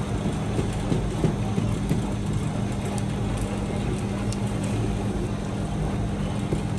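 Steady low hum of bakery machinery, with an even noisy background and no change in level.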